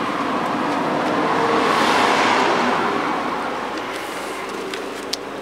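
A motor vehicle driving past, its engine and tyre noise swelling to a peak about two seconds in and then fading away.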